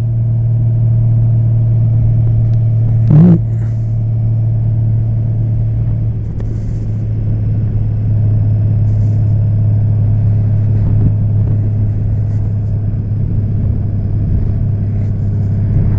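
2014 Honda Valkyrie's 1832cc flat-six engine running steadily under way, with low wind rumble on the microphone. A brief louder burst about three seconds in.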